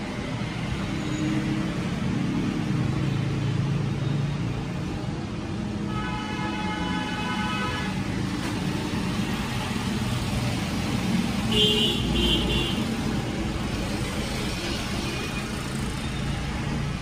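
Road traffic running steadily in the background, with a vehicle horn held for about two seconds around six seconds in and two short honks about twelve seconds in.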